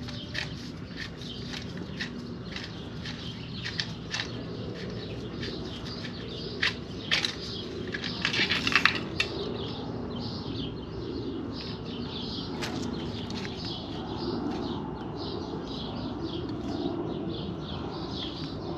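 Fuel injectors of a BMW S55 engine being pulled and handled by hand: scattered metal clicks and a short clatter about eight seconds in. Birds chirp in the background through the second half.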